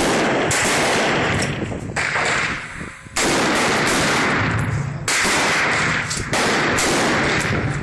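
AR-15 rifle fired in a slow string of single shots, a sharp crack every second or two, each with a long ringing tail.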